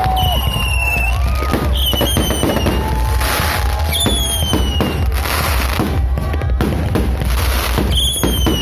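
Fireworks going off continuously: many sharp pops and bangs, with several short whistles, over a steady deep rumble.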